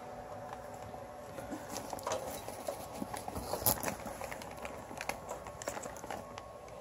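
The small cooling fan of a RoadPro 12-volt thermoelectric cooler running with a faint steady hum, under irregular clicks, knocks and rustles as the soft-sided bag is handled and turned over.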